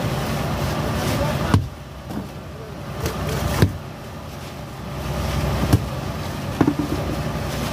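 A fishing boat's engine running steadily under a rush of wake water and wind, which drops away for a couple of seconds about a second and a half in. A few sharp knocks sound on deck.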